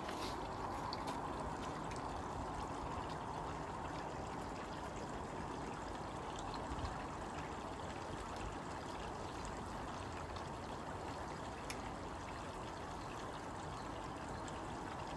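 Steady rushing background noise, like running or trickling water, with a few faint clicks and a soft thump from hand-tool work on a kids' bike brake.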